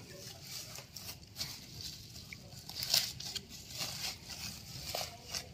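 Plastic packing film and tape crinkling and crackling as hands pull and peel it off a cardboard box, in short scattered rustles, the loudest about three seconds in.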